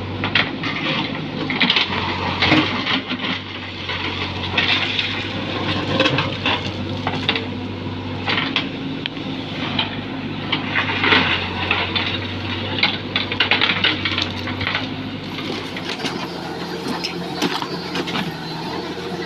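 A diesel engine running steadily under many irregular sharp cracks and clanks, as of heavy machinery working soil and stones.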